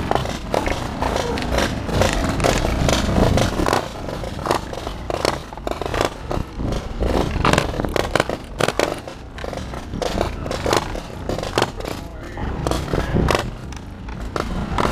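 Moving train car rumbling along, with many sharp, irregular pops of paintball markers firing from the car.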